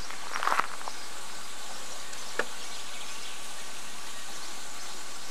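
Steady outdoor background hiss, with a brief cluster of short high sounds about half a second in and a single sharp click a little over two seconds in.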